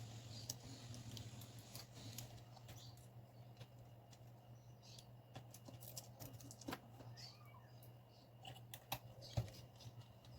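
Faint scattered clicks and taps of small laptop parts being handled and fitted during reassembly, over a steady low hum; the sharpest click comes near the end.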